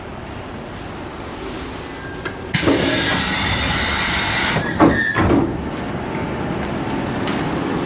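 Sliding doors of a 719 series 5000-subseries electric train operating: about two and a half seconds in, a sudden loud hiss of air starts, with a few short high chime tones over it, then the doors move with two heavy thuds and the sound settles to a lower steady hum.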